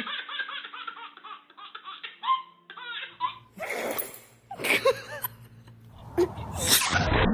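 Hearty human laughter in quick pulses, then, after a cut about three seconds in, a few short sudden bursts of sound.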